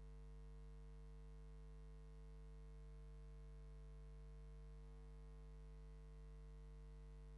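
Near silence with a faint, steady low hum that does not change.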